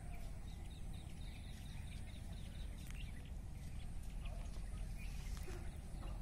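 Rural outdoor background: a steady low rumble with a quick run of faint bird chirps in the first two seconds and a few light clicks.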